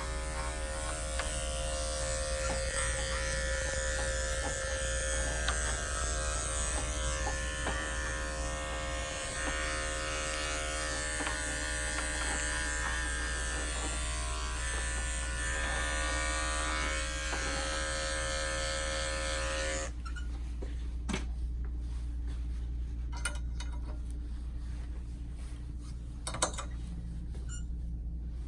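Andis 5-speed electric dog clipper running steadily as it clips the coat, switched off abruptly about two-thirds of the way through. After that, a low hum and a few light clicks and taps.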